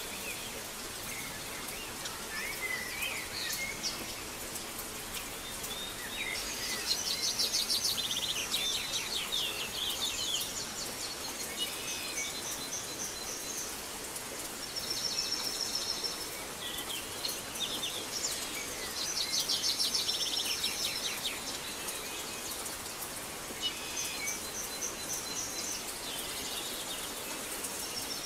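Steady rain with birds chirping and trilling over it in repeated bouts.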